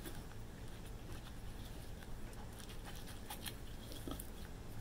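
Silicone spatula stirring thick powdered-sugar glaze in a glass measuring cup: faint, irregular scraping and clicking against the glass.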